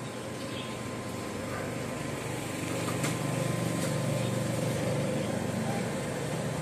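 A steady low mechanical hum with a rushing noise, a little louder from about halfway through, and one faint click about three seconds in.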